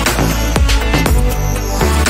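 Background music: an electronic track with a heavy bass and a steady beat.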